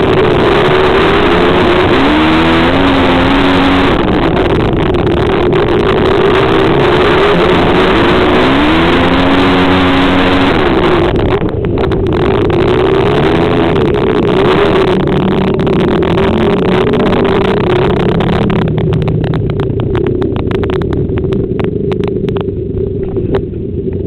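Racing motorcycles in a short-track flat-track race, engines running hard. Their pitch drops and climbs back as they shut off and open up again around the track, and the sound thins out over the last few seconds.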